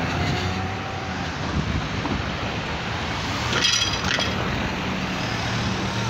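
Cars and a pickup truck driving past close by, engines running and tyres on the road surface, with a brief high-pitched sound about three and a half seconds in.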